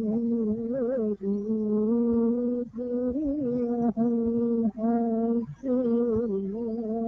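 A man's solo voice chanting a hymn without accompaniment: long held notes with small wavering ornaments, broken by short pauses for breath between phrases.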